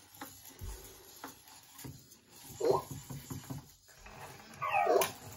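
Small electronic toy robots making short chirping, warbling sounds, a brief one near the middle and a longer one near the end, with faint clicks from their moving parts.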